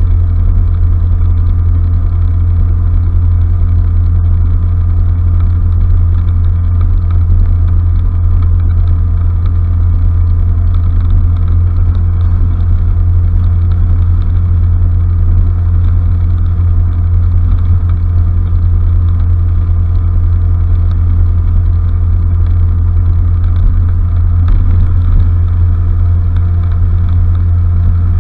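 Honda Fusion scooter's single-cylinder four-stroke engine running at a steady cruising speed, heard from on board as a loud, unchanging low drone with steady engine tones above it.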